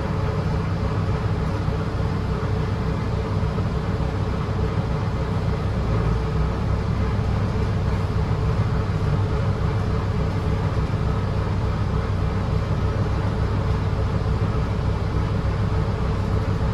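Cabin noise of a 2017 Gillig Low Floor BRT 40-ft transit bus under way: steady engine and road rumble with a faint steady hum.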